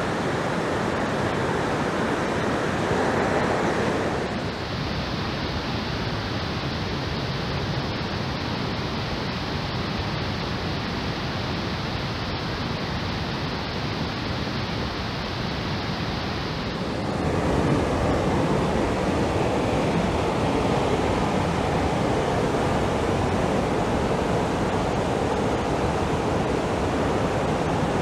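Steady rushing of stream water, an even hiss with no breaks. Its tone changes abruptly about four seconds in and again around seventeen seconds.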